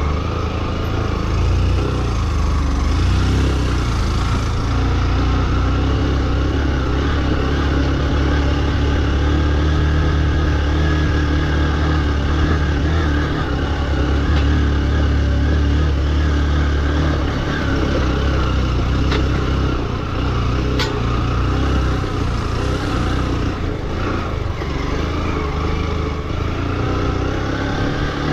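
Motorcycle engine running steadily as the bike is ridden along a rough off-road track.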